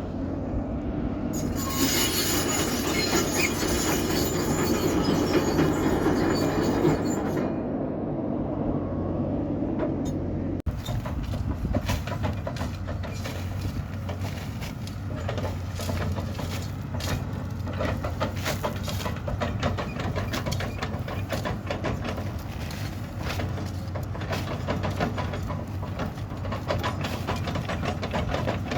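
Excavator's diesel engine running with a steady low hum, along with metal clatter from the machine at work. About a third of the way in the sound changes abruptly to dense, rapid clanking, like steel tracks and bucket rattling.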